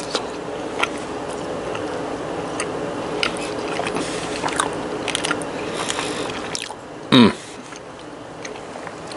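A man chewing a hot mouthful of chicken, with small wet mouth clicks over a steady background hum. The hum drops away about seven seconds in, and a brief sound falling in pitch follows.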